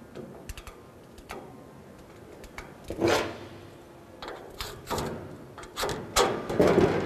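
Light clicks and taps of metal marking tools and sheet metal being handled on a workbench, with a louder scrape about three seconds in.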